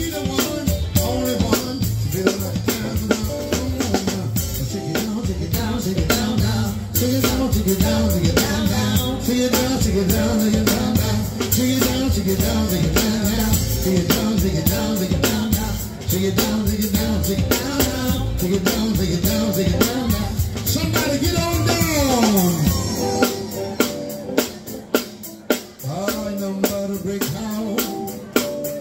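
Live band playing with a drum kit, its cymbals close by, and electric guitar over a steady beat. About 22 seconds in, a long falling pitch slide comes, and after it the low end thins out, leaving mostly drums.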